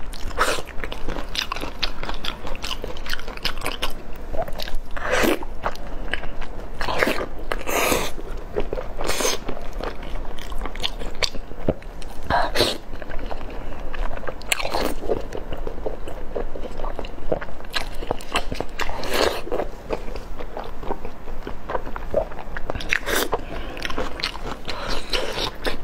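Close-miked eating: biting into and chewing pieces of braised beef tendon coated in spicy sauce. A continuous chewing noise is broken every few seconds by sharper individual bites.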